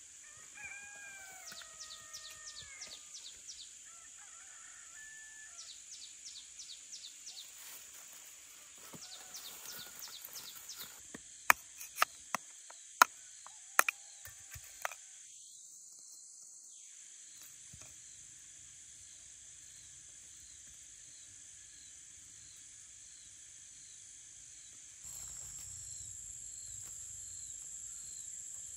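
Steady high insect buzz with bird calls and trilling chirps over it in the first part. About halfway through come six sharp knocks, the loudest sounds, from a large knife chopping; after that the insect buzz carries on alone, a little louder near the end.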